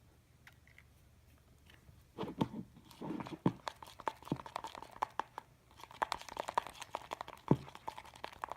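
Thick glue-and-cornstarch slime batter being stirred in a bowl with a mixing tool: a dense run of quick wet, sticky clicks and scrapes, starting about two seconds in.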